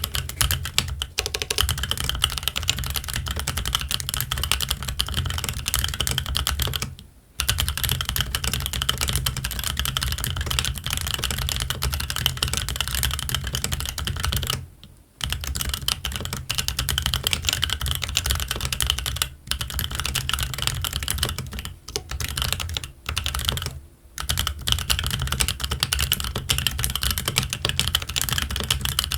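Fast typing on a Keychron Q1 mechanical keyboard with Gazzew Boba U4T tactile switches and Cherry-profile ABS keycaps: a dense run of key clacks, broken by short pauses about 7, 15 and 24 seconds in.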